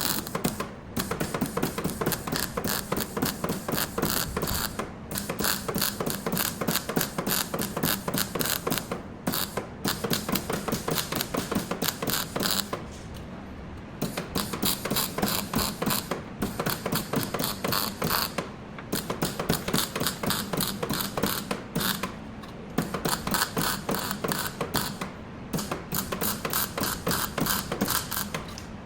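Rapid mechanical clatter, a fast run of sharp clicks, in stretches of a few seconds with brief pauses, typical of a tool working on the car body.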